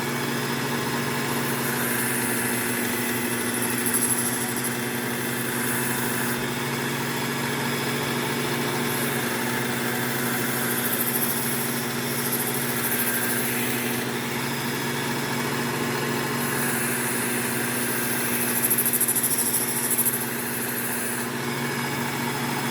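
Work Sharp Ken Onion MK2 belt sharpener's motor running with a steady hum while a knife edge is drawn across the Trizact A30 belt in several passes, each pass a few seconds of high grinding hiss.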